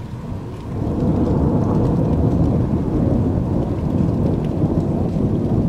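Rolling thunder rumbling, swelling louder about a second in and holding.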